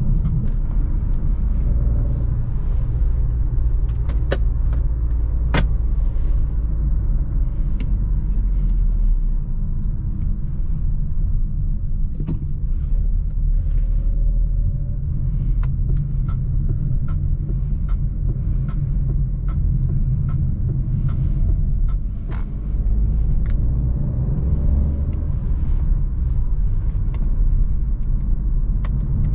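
Jeep Avenger's 1.2 turbo petrol engine and its tyres on the road, a steady low rumble as the car drives along. Many short sharp clicks and knocks are scattered through it.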